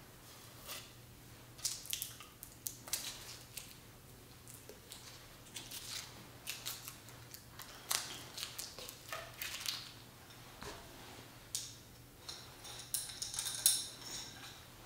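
Handling noise of magic props: silk handkerchiefs rustling and a metal tube being handled, with scattered light clicks and taps. Near the end a brief metallic ringing jingle.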